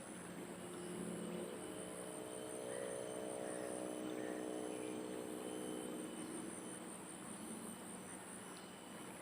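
A distant motor engine hums steadily, growing louder over the first few seconds and fading out near the end, over a constant high chirring of insects.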